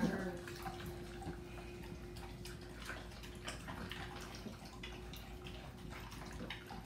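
American bully dog eating from a bowl: many small, irregular chewing and mouth clicks, with a faint steady hum underneath.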